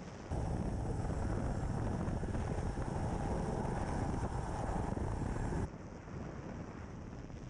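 Helicopter rotor and engine noise heard at an open cabin door over the sea, a loud steady roar with wind buffeting. It starts abruptly just after the start and cuts off sharply about five and a half seconds in, leaving a quieter steady rush of wind and sea.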